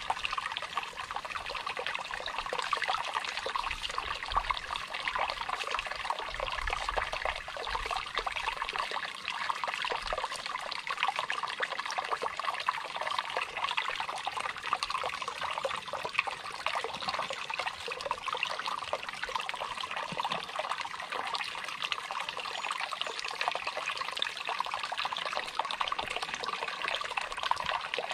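Shallow stream trickling and babbling over stones, a steady rush of running water.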